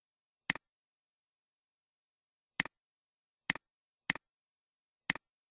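Five computer mouse clicks, unevenly spaced, each a sharp press followed at once by a softer release, with dead silence between.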